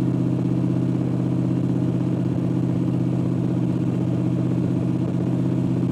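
5.3-litre LS V8 in a swapped Ford Ranger running steadily while cruising, heard from inside the cab as an even engine and exhaust note that holds its pitch.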